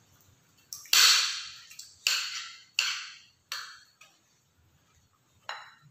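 Metal spoon and fork knocking and scraping against ceramic plates: five sharp clinks, each trailing off briefly, the loudest about a second in.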